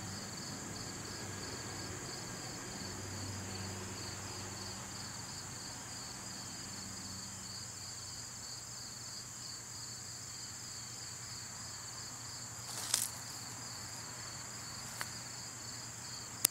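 Insects chirring steadily outdoors: a high, even drone with a faster pulsing trill just below it. A short knock comes about thirteen seconds in, a faint click a little later, and a sharp click right at the end.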